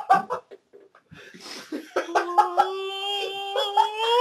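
A young man's exaggerated wailing cry. A few short voice sounds come first; then, from about two seconds in, one long held wail rises in pitch near the end.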